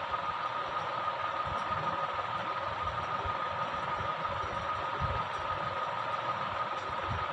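Steady background noise: an even hiss with a constant high hum running through it, and scattered faint low thumps.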